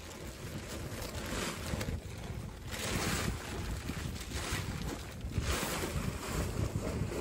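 Tent fabric rustling in repeated swishes as a folded stove tent is pulled open and spread out on a plastic ground tarp, over a steady low wind rumble on the microphone.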